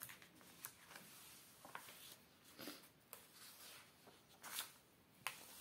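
Faint rustling and swishing of a glossy paper catalogue being opened and its pages turned by hand, a few brief swishes, the loudest about four and a half seconds in.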